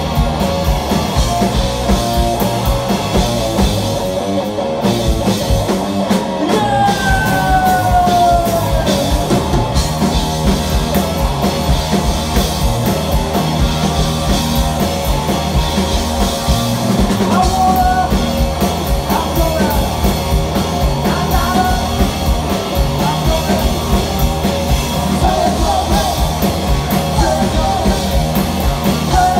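Punk rock band playing live: electric guitar and drums with yelled vocals.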